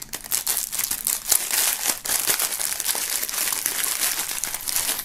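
Clear plastic bag crinkling and crackling as an item is pulled out of it by hand.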